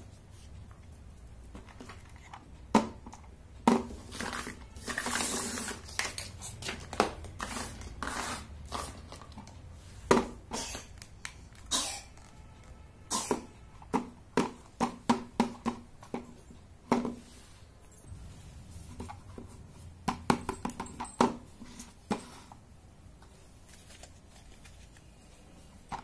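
Small hard plastic toy pieces clicking and knocking against each other and the tabletop as they are handled and fitted together, in irregular runs of sharp taps.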